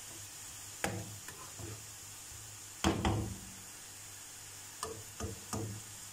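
Sliced onions sizzling in hot oil in a frying pan over high flame, nearly golden brown, with a wire-mesh skimmer knocking against the pan as they are stirred: a knock about a second in, a louder one near three seconds, then three quicker knocks near the end.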